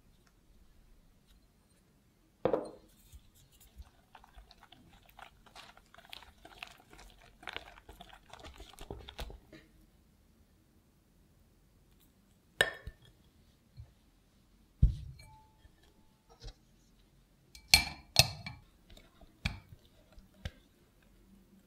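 Wire whisk stirring thick chocolate cheesecake batter in a glass bowl: a few seconds of quick, wet clicking strokes. Then come a few sharp clinks of metal and glass and a dull thump.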